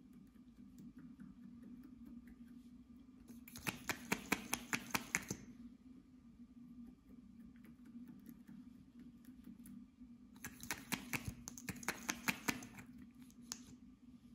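Lip gloss applicator wand dabbing into clear slime, making quick sticky clicks in two runs of about five to six a second, a few seconds in and again past the middle, over a low steady hum.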